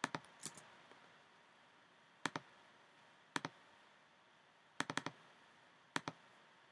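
Computer mouse clicking: sharp single and quick double clicks, spaced out a second or more apart.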